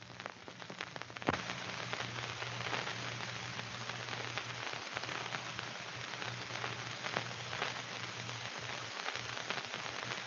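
Surface hiss and crackle of an old film soundtrack during a pause, with a steady low hum and scattered clicks that are thickest in the first second or so.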